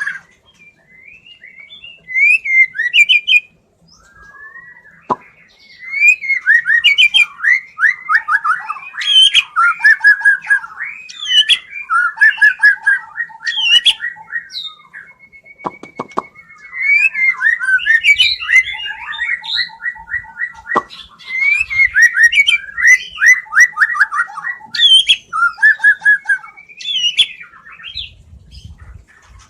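Murai (white-rumped shama) singing a long, varied song without pause: fast trills, chirps and slurred whistles strung together, with one long steady whistled note midway.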